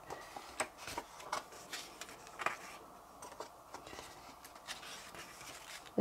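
Paper pages of a book being turned by hand: a string of soft rustles and light flicks.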